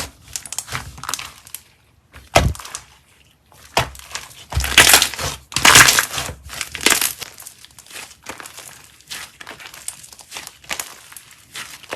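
Slime being squeezed and pressed by hand, giving off irregular crackling and popping in uneven bursts, with a few louder squishes around the middle.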